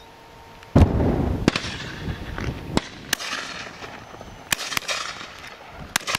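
Shotguns firing at driven partridges: one loud close report about a second in that rings out, then a string of further shots, some in quick pairs of two barrels (a left and right).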